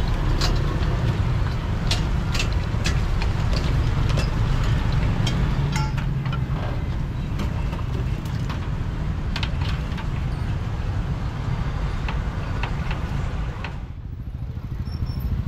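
Roadside street ambience: a steady low rumble of passing traffic with scattered sharp clicks and clinks of metal.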